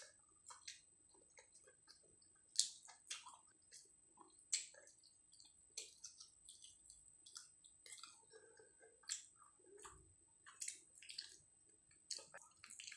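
A person chewing mouthfuls of rice and curry eaten by hand: soft, irregular wet mouth clicks and smacks.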